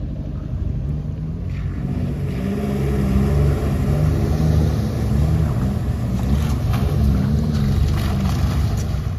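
Off-road 4x4 engine running and revving as it drives through a shallow river crossing, with water splashing. It grows louder over the first few seconds, then its pitch rises and falls with the throttle.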